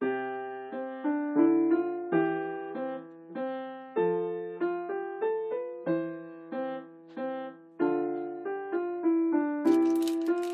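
Piano background music, a melody of separate notes that each fade away. Near the end, a rustling hiss as frying-mix powder is poured from its bag into a bowl.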